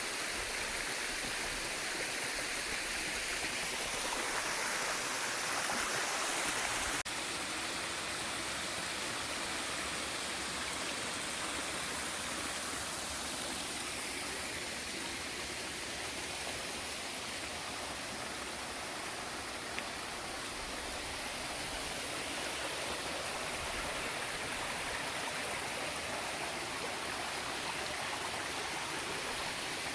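Steady rushing of a small waterfall and mountain stream pouring over bedrock. The sound shifts abruptly about seven seconds in, then runs on slightly quieter.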